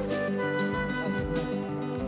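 Dance music with a steady beat: instruments holding sustained notes over regular drum hits.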